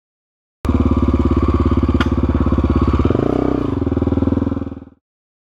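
Dirt bike engine running while riding a forest trail, heard from a camera on the bike: it cuts in abruptly and fades out about four seconds later. A sharp knock comes about a second and a half after it starts, and the engine note changes briefly a little after that.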